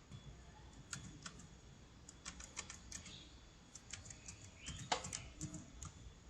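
Computer keyboard keys being typed, a faint, irregular run of quick clicks.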